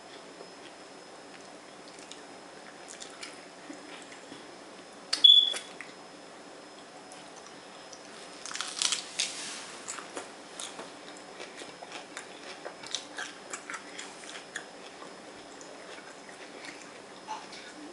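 Crunching bite into a lettuce-leaf taco about eight seconds in, followed by chewing with scattered crisp clicks. The loudest sound is a single sharp click with a brief high squeak about five seconds in.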